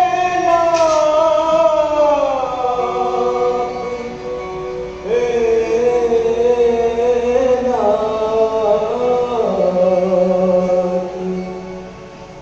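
Devotional Hindi bhajan to Shiva (Bholenath): a singer holds two long, slowly gliding notes, the second starting about five seconds in, over instrumental accompaniment.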